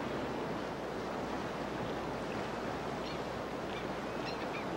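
Steady rushing of river water over rocks and rapids. A few faint, short bird calls come in from about three seconds in.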